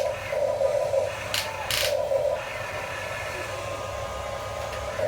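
Small electric motors and plastic gearboxes of a toy remote-control construction vehicle whirring in short repeated bursts, settling to a steadier, quieter run about halfway through. There are two sharp clicks a little over a second in.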